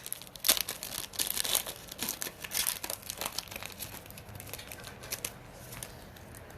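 Plastic wrapper of a 2017-18 Panini Optic basketball card pack crinkling and tearing as it is opened by hand: dense crackling that thins out after about five seconds.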